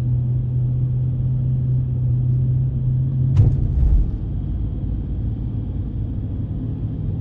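Car driving slowly, heard from inside the cabin: a steady low engine hum and road rumble. There is one sharp click about halfway through, followed by a low thump.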